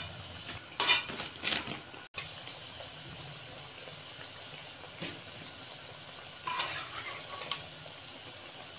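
Pakoras deep-frying in hot ghee in an aluminium wok, a steady sizzle and bubbling. A metal slotted spatula scrapes and clinks against the pan a few times as fried pakoras are lifted out.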